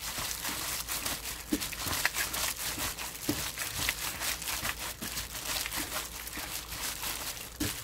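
Disposable plastic glove crinkling, with wet squishing, as a gloved hand kneads gochujang-marinated pork in a nonstick wok: an irregular crackle with a few sharper ticks.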